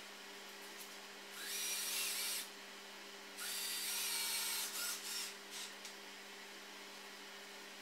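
Cordless drill-driver driving screws into plywood: two runs of about a second each, then a few short spurts.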